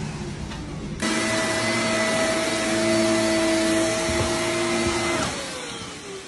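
An electric motor appliance running with a steady whine over a rushing air noise. It cuts in sharply about a second in, then winds down with falling pitch near the end, as if switched off.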